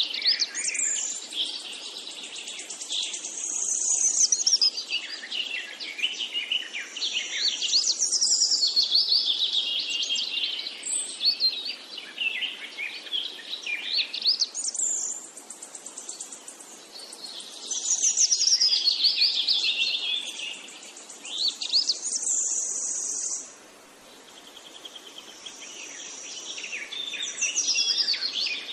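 A songbird singing continuously in long, fast twittering phrases with high trills, broken by a short pause a little before the end.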